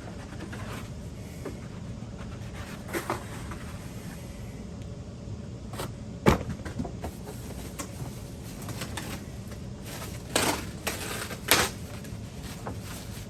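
Handling noises while unboxing a monitor: scattered knocks, clicks and rustles of packaging and parts, with one sharp knock about six seconds in and a quick cluster of knocks near the end, over a steady low hum.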